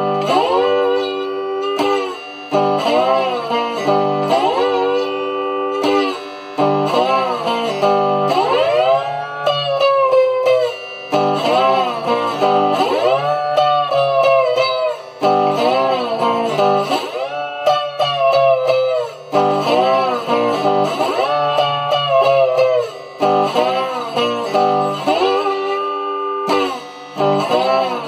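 Electric guitar played with a slide in open G tuning: a slow blues solo of repeated phrases, the notes gliding up and bending back down, with brief gaps between phrases.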